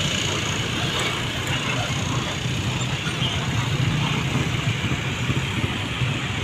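Old bus engine running with a steady low rumble through a 'knalpot ngorok', a snoring-sounding exhaust.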